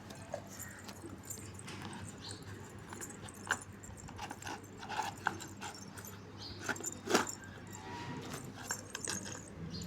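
Small plastic toy pieces and packaging being handled: scattered light clicks and rustles, with a sharper click about three and a half seconds in and another about seven seconds in.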